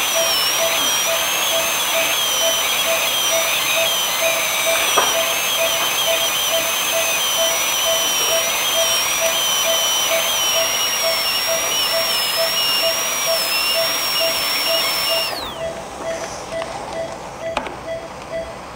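High-speed dental air-turbine handpiece running with a high, slightly wavering whine and a steady hiss while cutting a primary tooth for a crown prep. About fifteen seconds in it stops, its whine falling quickly as the bur spins down.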